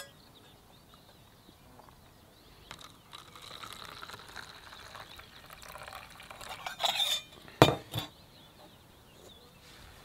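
Coffee poured in a thin stream from a small long-handled Turkish coffee pot (cezve) into a paper cup, with a spoon clinking against the pot. Two sharp knocks come near the end as the pot is set down on the table.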